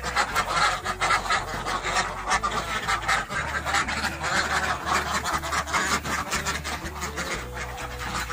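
A flock of domestic ducks in a pen quacking continually, many short calls overlapping.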